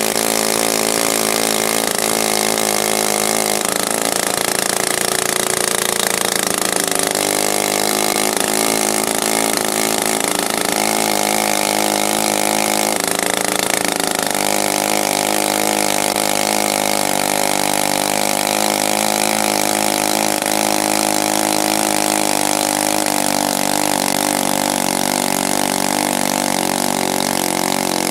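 Vintage two-stroke chainsaws running at full throttle, cutting steadily through a thick log. The engine note dips and recovers slightly as the chain bites.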